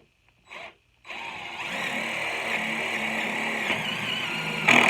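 Power drill boring a 1/4-inch pilot hole in wood, its motor running steadily from about a second in, with a short louder burst near the end.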